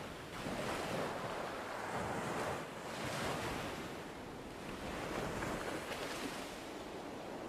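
Ocean surf breaking and washing up a sandy beach, swelling and fading in repeated surges.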